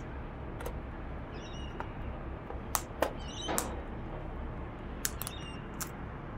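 Sulphur-crested cockatoo feeding from a plastic seed tray: sharp, irregular clicks of its beak picking at and cracking seed against the dish, the loudest about three seconds in. Faint high chirps between the clicks.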